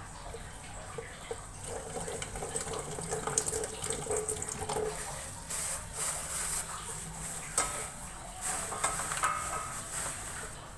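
Water running from a tap into a sink, with a few scattered knocks and clinks.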